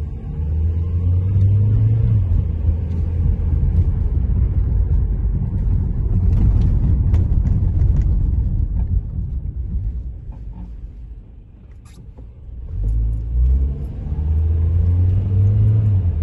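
Car engine and tyres on a wet road, heard from inside the cabin while driving: a steady low rumble with the engine note climbing as the car gathers speed. It dies down about ten seconds in as the car slows, then rises again as it pulls away.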